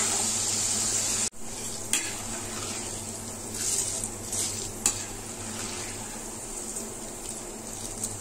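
Chana dal deep-frying in hot oil in a metal kadhai: a steady sizzle that drops out abruptly about a second in and comes back quieter. A perforated steel skimmer stirs and scoops the fried dal, clicking a few times against the pan, as the crisp, light golden dal is lifted out of the oil.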